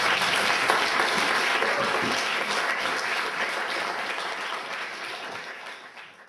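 Audience applauding, a dense spatter of many hands clapping that gradually fades out near the end.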